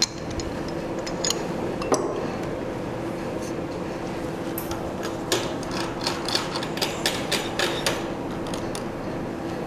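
Metal knocks and a run of short clicks in the second half, from hand work at the spindle of a vertical milling machine while a drill bit is swapped for an end mill, over a steady hum.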